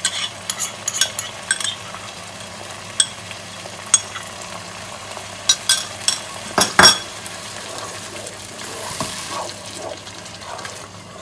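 A metal spoon scraping and tapping against a plastic yogurt tub and the pan rim as yogurt is scooped into frying masala: a series of sharp clicks, the loudest about seven seconds in. Near the end a wooden spoon stirs the sizzling tomato-onion masala in the pan.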